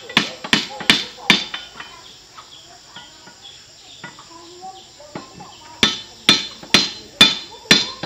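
Hammer blows on the metal of a two-wheel walking tractor, about two sharp strikes a second: four near the start, then a pause, then another steady run of five from about six seconds in.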